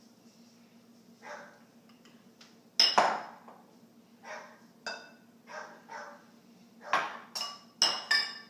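Kitchen utensils clinking and knocking against a mixing bowl while dry ingredients are measured in, about ten separate knocks with a brief ring, the loudest about three seconds in. A faint steady hum sits underneath.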